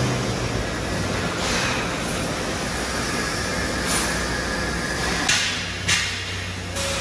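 Steady mechanical rumble and hum of an industrial workshop, with a few sharp knocks in the second half, the loudest about six seconds in.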